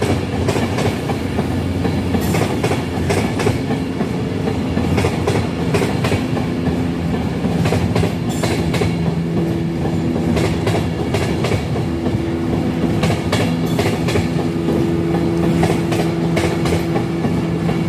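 Avanti West Coast Class 390 Pendolino electric train running past: a steady rumble with a clickety-clack of wheels over rail joints, and a steady low hum that comes in about halfway through.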